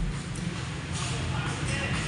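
Background music, faint, over a steady low hum and general room noise.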